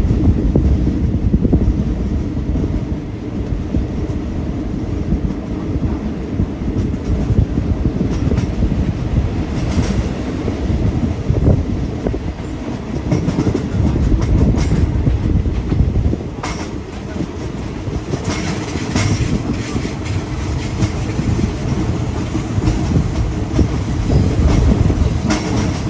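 Passenger train rolling along the rails in a loud, steady rumble, with a few sharp clicks from the wheels over rail joints.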